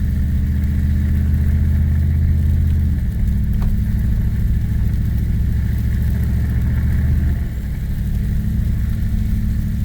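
Pickup truck engine pulling a loaded trailer uphill, heard from inside the cab as a steady low drone. Its note shifts about three seconds in, and it drops a little in level around seven and a half seconds.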